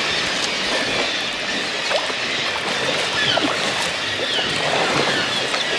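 Continuous din of a large seabird colony, mostly kittiwakes, calling from the cliffs, many short calls overlapping into a steady wall of sound, with water lapping around the kayak.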